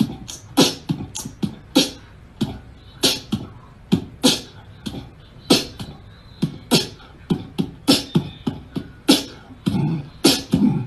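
A run of short, sharp clicks and pops at uneven intervals, about two or three a second.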